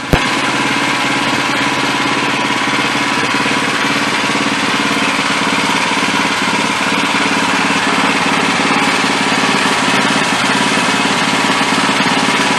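Wood-Mizer LX25 sawmill's engine running steadily at a constant speed, loud and unchanging.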